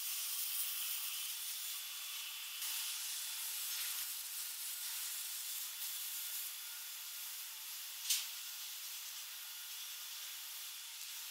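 A steady high-pitched hiss with no low sound in it, and one short sharp sound about eight seconds in.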